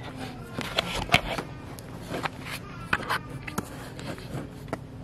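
Camera handling noise: scattered clicks and knocks, with rubbing and rustling in between, as the camera is picked up, moved and set in place.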